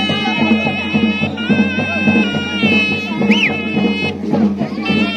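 Shehnai playing a reedy folk melody of long held high notes, with a quick bending flourish a little past the middle, over a low drum beat.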